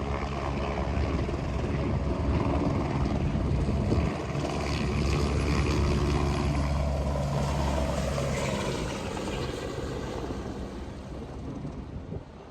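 Helicopter rotor and engine running, with a falling pitch in the middle as it passes, then fading as it moves away.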